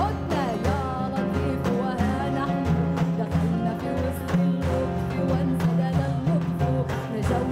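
Arabic Sufi song performed live: a woman's voice sings ornamented, wavering melodic lines over oud and percussion accompaniment with a repeating low bass pulse.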